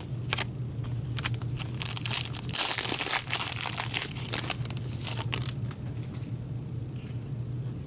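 Plastic wrapper of a pack of trading cards crinkling and tearing as the pack is opened, densest and loudest in the middle, with scattered clicks of handling before and after.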